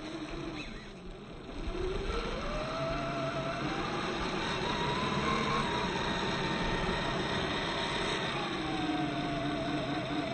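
Electric motor and gearbox of a 1/10-scale Boom Racing BRX02 RC crawler whining under load as it climbs a steep dirt slope. The whine comes in about two seconds in, rises in pitch to a peak midway, then eases a little lower and holds.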